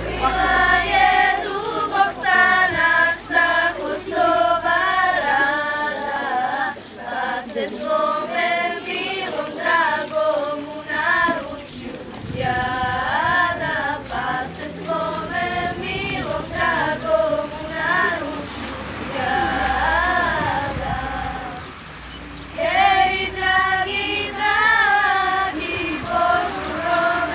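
A group of girls singing together in phrases, as a small school choir.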